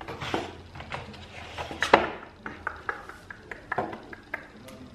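Light clatter of kitchen things handled on a countertop: scattered clicks and knocks of bowls, containers and utensils, with one louder knock about two seconds in.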